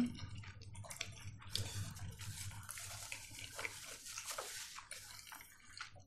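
People eating at a table: wet chewing, lip smacks and small clicks, irregular and close to the microphone, over a faint low hum.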